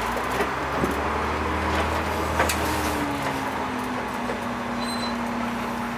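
Converted school bus engine running as the bus drives slowly, its note easing down a little about halfway through, with a few clicks and rattles.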